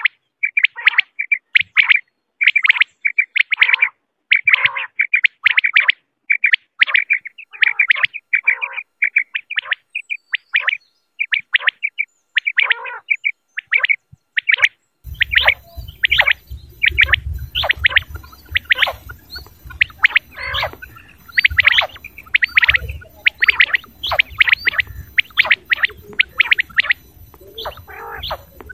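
Quail calling over and over in short, sharp, chirping calls, about one to two a second. About halfway through, the recording changes: a low rumble and hiss of background noise come in under faster, denser calling.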